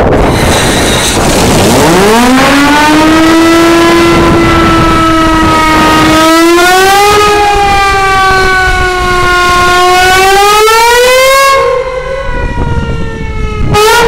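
Steamship Shieldhall's steam whistle blowing one long blast: its pitch slides up as it opens about a second and a half in, holds, climbs twice more, and cuts off a couple of seconds before the end. Wind on the microphone throughout.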